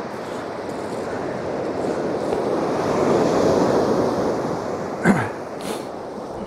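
Surf breaking on a shingle beach: a wave swells and crashes about three seconds in, then washes back and fades. A brief thump about five seconds in is the loudest moment.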